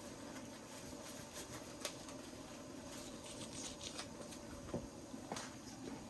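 Faint scattered clicks and light knocks of kitchen utensils and pots being handled, over a steady low hum.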